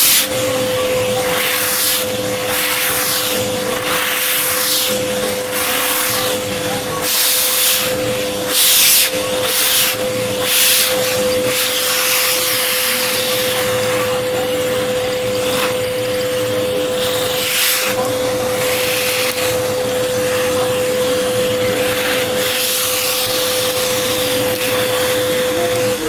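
Vacuum cleaner running steadily with a constant motor whine, its nozzle being drawn over a cat's fur. The rush of air surges briefly again and again through the first half as the suction changes.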